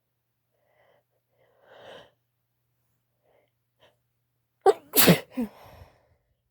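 A woman sneezes once, loudly, about four and a half seconds in. A quiet breath comes about two seconds in.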